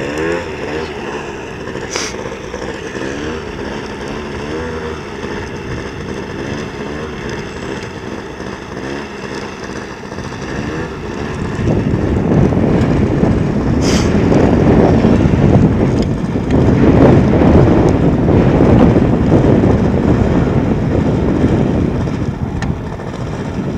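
A motor runs with a wavering pitch, the drive that pulls the coursing lure along its line. About twelve seconds in, heavy wind buffeting on the microphone rises over it and stays loud.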